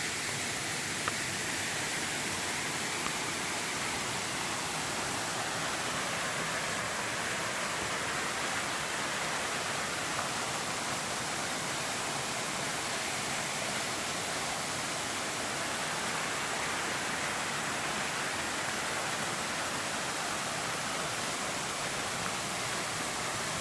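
Waterfall and river: a steady rush of falling and flowing water.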